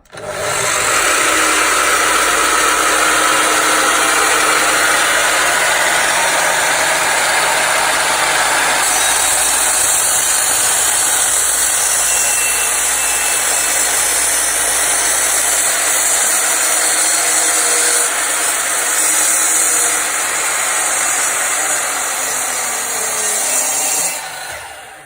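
Electric power saw running and cutting through timber for about 24 seconds, then switched off and winding down near the end.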